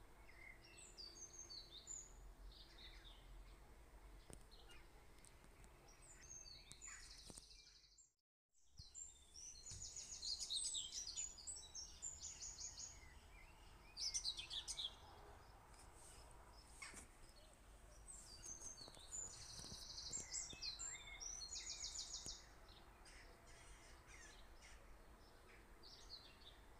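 Faint birdsong: birds chirping with bursts of rapid high trills, over a low steady background hum. The sound drops out completely for about half a second some eight seconds in.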